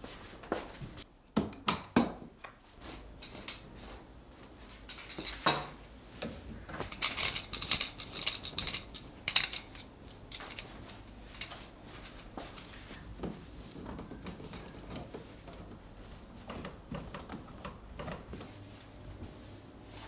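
Fabric being handled on a wooden table: rustling cloth with sharp clicks and light clinks. The handling is busiest about halfway through and softer afterwards.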